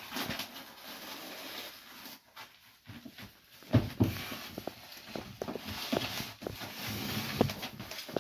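Self-adhesive foil-faced neoprene foam sound insulation being pressed and smoothed down by hand, its paper backing rustling and crinkling as it is peeled away, with scattered light knocks and scrapes that get busier about halfway through.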